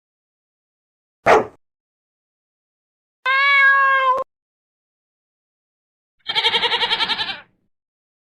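Three separate short sound effects with silence between them: a brief burst about a second in, then a steady pitched, animal-like call lasting about a second, then a second animal-like call of about a second that wavers very fast.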